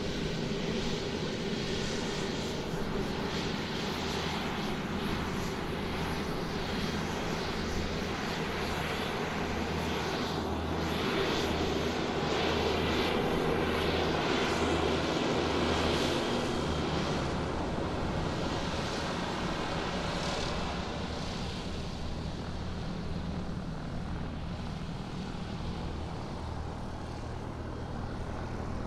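Airplane engines running steadily as the aircraft taxis on the ground, swelling a little louder for a few seconds in the middle.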